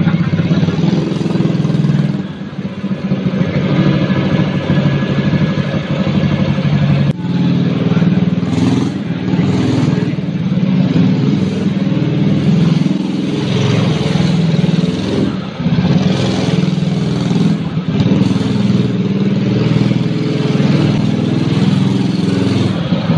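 Minibike's 160cc single-cylinder four-stroke water-pump engine (Honda GX160 type) running under load as the bike is ridden. Its speed rises and falls, with brief drops a few times as the throttle is eased.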